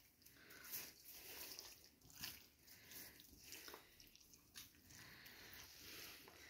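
Faint, irregular wet squishing and soft clicks of hands pressing and turning a raw whole chicken on a wooden cutting board.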